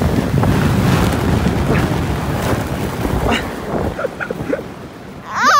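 Wind buffeting the microphone and a sled hissing over snow during a ride downhill, the rush fading about four seconds in as the sled slows. A loud, high-pitched shriek comes near the end.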